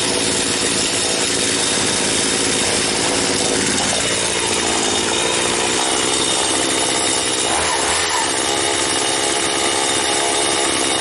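Poulan 4620 two-stroke chainsaw engine running steadily at a fairly even speed, warming up with its air filter back on.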